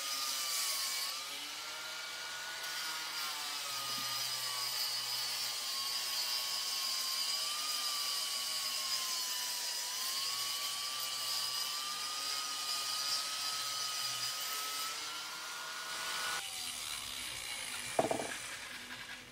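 Small handheld cordless power tool grinding old mortar out of the bottom course of brickwork. Its motor whine wavers in pitch as it is pressed in and eased off, then stops about three seconds before the end, followed by a single thump.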